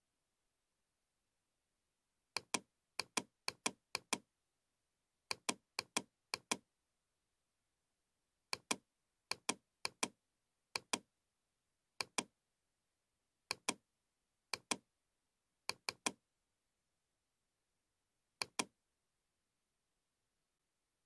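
Computer mouse clicking in irregular runs, each click a quick press-and-release pair, placing the points of a spline. The clicks start about two seconds in and stop a couple of seconds before the end.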